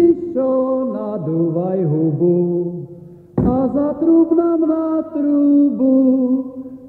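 Voices singing a chant-like Slovak folk Christmas or New Year song in two phrases, the second starting abruptly about three and a half seconds in. It is an old field recording played from cassette tape.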